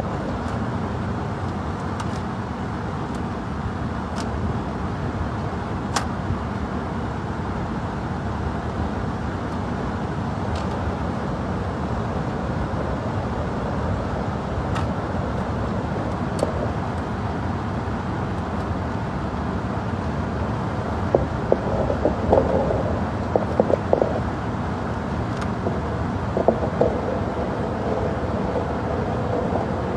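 Steady low rumbling noise with scattered faint clicks, and a few short louder bursts about two-thirds of the way in.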